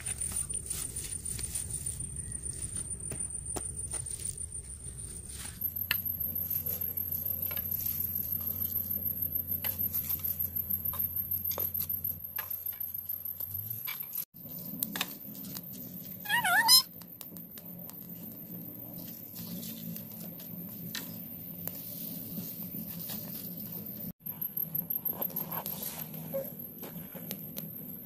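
Dry grass and sticks being handled, with scattered light clicks and rustles, under a steady high-pitched drone that changes at each cut. About halfway through comes one brief animal cry falling in pitch.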